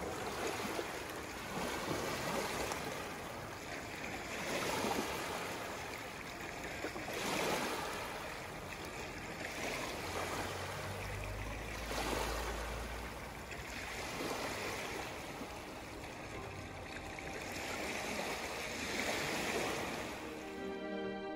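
Rushing water, swelling and fading about every two and a half seconds, like small waves washing in.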